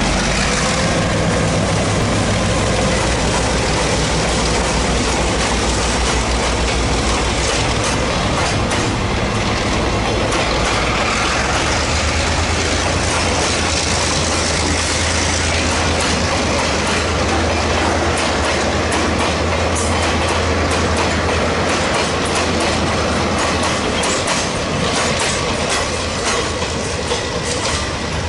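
Taiwan Railway R100-series diesel-electric locomotive running as it pulls a freight train out. A long string of freight wagons follows, rolling past steadily, wheels clattering over the rail joints.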